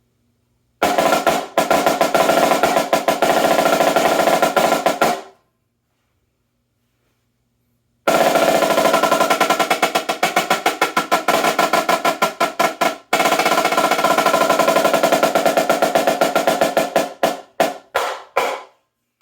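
Pearl FFX snare drum played in fast rolls, its snare-side head tuned very low. A roll of about four seconds, then, after a short pause, a longer stretch of rolling that breaks up into separate, slower strokes near the end.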